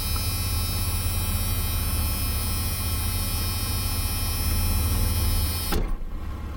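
Car engine idling, heard from inside the cabin as a steady low hum with a faint high whine over it. Near the end the whine cuts out abruptly, leaving a quieter low rumble.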